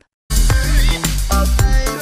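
Background music with a steady beat and heavy bass, starting after a brief silence about a third of a second in.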